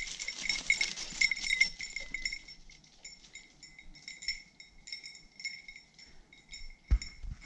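A small bell on a hunting hound jingling rapidly as the dog moves through the forest, growing sparser and fainter after about two seconds as the dog gets farther away.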